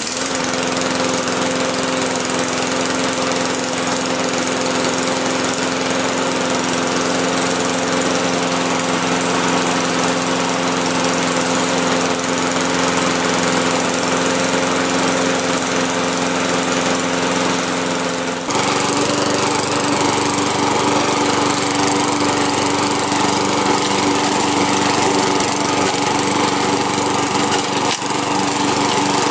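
Lawn-Boy Commercial walk-behind mower's newly fitted replacement engine catching on the pull and running steadily on its first start. The engine's condition had been unknown, and it keeps running. About 18 seconds in its sound changes abruptly, and it runs on while the mower is pushed across grass.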